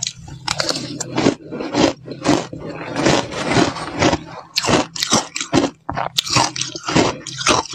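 Mouthfuls of slushy shaved ice being bitten and chewed: crunches in quick succession, running together into a denser stretch of grinding around the middle before separating into sharp crunches again.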